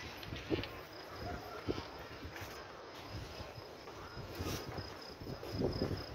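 A cricket chirping in a fast, steady, even pulse of high-pitched notes, with dull irregular knocks and rustle underneath from the handheld camera being carried.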